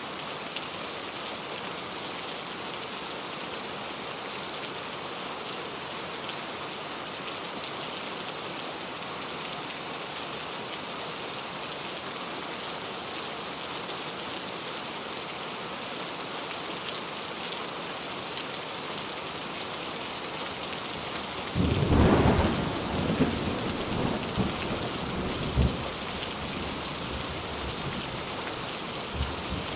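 Steady rain hissing. About three-quarters of the way through, a sudden clap of thunder breaks in and rumbles on for a few seconds before fading back into the rain.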